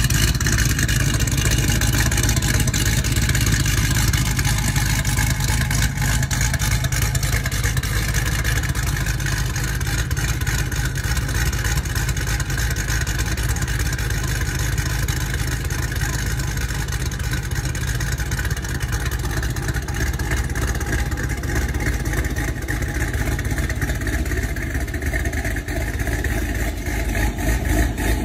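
A car engine running steadily, with most of its sound low in pitch.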